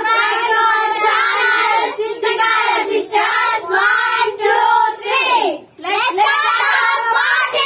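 A group of children singing together loudly in unison, with a short break for breath about two thirds of the way through.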